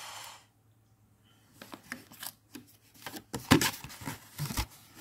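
Rustling and clicking of a card-and-plastic needle packet handled between the fingers close to the microphone, starting about a second and a half in and getting busier and louder over the last couple of seconds.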